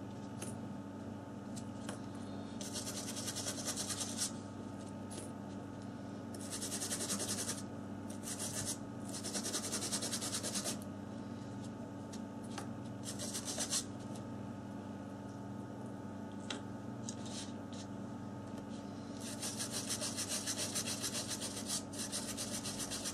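Brush scrubbing corrosion off a phone's circuit-board components, in scratchy strokes lasting a second or two, over a steady low hum.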